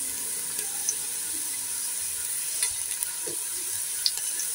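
Sliced onions, green chillies and masala powder frying in hot oil in a cooking pot, a steady sizzle. A spatula stirs with a few light scrapes and taps against the pot.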